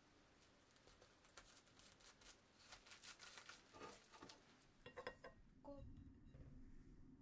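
Faint crinkling and rustling of plastic cling film being folded and pressed around a soft sandwich, with a few sharper clicks about five seconds in.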